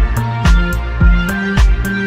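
Electronic dance music: a steady kick drum about twice a second over a stepping bass line and held synth notes, with crisp hi-hat ticks between the beats.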